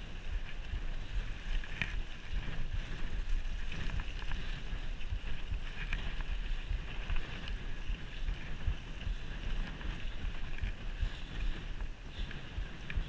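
Wind buffeting the microphone of a mountain biker's action camera as the bike rolls over a rough gravel track, with tyre noise and scattered clicks and rattles from the bike.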